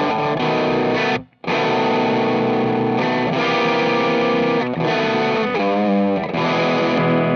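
1998 Dan Armstrong Ampeg electric guitar played through a Fuzzrocious Dark Driving fuzz pedal: fuzz-distorted sustained chords, broken by a short stop about a second in.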